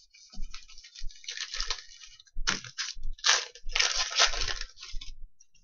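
Irregular crinkling and rustling as trading cards and their packaging are handled, in uneven bursts that stop shortly before the end.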